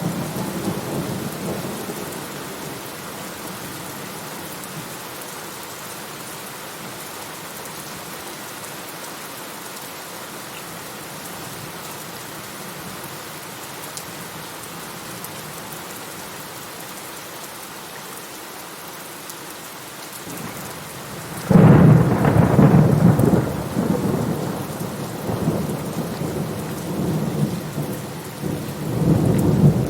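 Steady rain falling, with a rumble of thunder dying away in the first couple of seconds. About twenty seconds in, a loud clap of thunder breaks out suddenly and rolls on in deep rumbles that swell again near the end.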